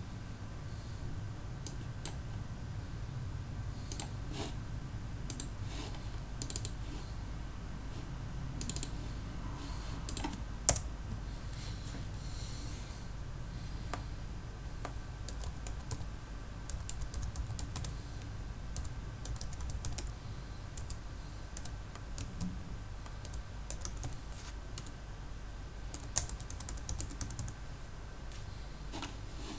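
Typing on a computer keyboard in irregular runs of keystrokes with short pauses between them, with two sharper, louder key clicks. A low steady hum runs underneath.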